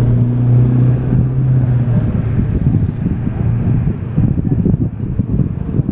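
Wind buffeting the microphone with an uneven low rumble, and a vehicle engine's steady low hum through roughly the first half.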